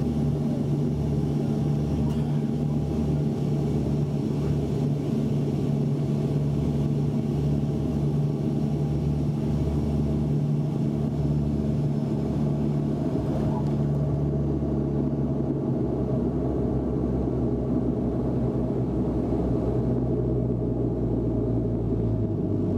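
Inside the cabin of a Bombardier Dash-8 Q400 landing: the steady drone of its twin Pratt & Whitney PW150A turboprops and six-bladed propellers. About two-thirds of the way through the hiss drops away and the drone settles to a lower tone as the plane rolls down the runway.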